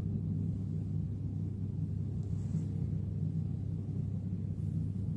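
A steady low hum of room tone, with a faint, brief soft noise about two and a half seconds in.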